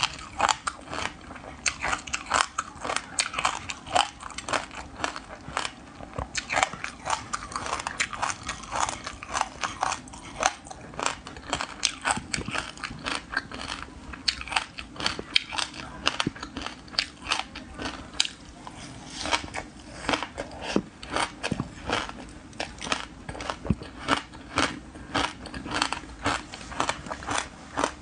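Frozen passion fruit pulp coated in buckwheat groats being bitten and chewed: a dense run of crisp crunches and crackles, several a second.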